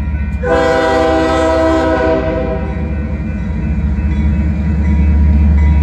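Union Pacific diesel locomotive sounding its multi-note air horn in one long blast that starts about half a second in and fades out around two to three seconds in. Under it, the locomotive's diesel engine rumbles steadily and grows louder as the train approaches.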